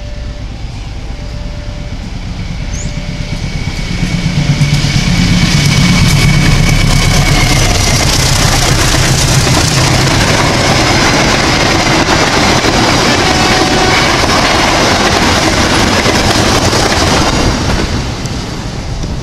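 Diesel-electric locomotive hauling a passenger train through a station without stopping. The engine's low drone swells about four seconds in as it passes, then a long, even rush of wheels on rail carries on as the coaches go by, fading away a second or two before the end.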